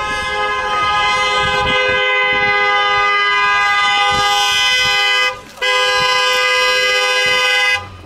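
A two-tone electric horn blaring in long, steady blasts. The blast breaks off briefly about five seconds in and again near the end.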